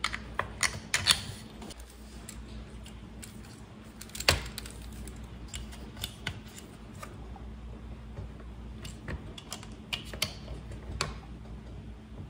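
Scattered light clicks and taps of a screwdriver and small metal parts as screws are driven into a chainsaw's carburetor, with a sharper knock about four seconds in, over a low steady hum.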